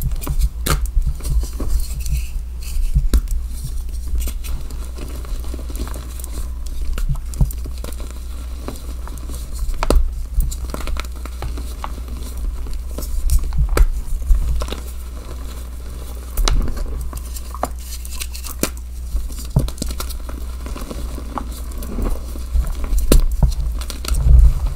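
Blocks of dyed gym chalk crushed and crumbled by hand in a plastic tub. They give irregular crisp crunches and crackles, with clusters of louder snaps every few seconds, over a steady low hum.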